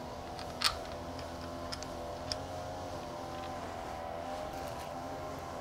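A few light metal clicks as small stainless steel bolts are handled and set into a caster's steel mounting plate, the loudest about two-thirds of a second in, over a steady background hum.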